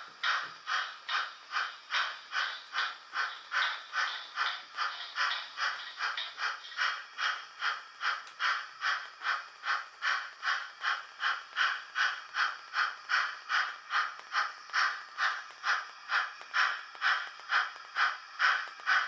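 Märklin H0 model steam locomotive's sound decoder playing a steady steam-exhaust chuff, about two and a half puffs a second, growing slightly louder toward the end.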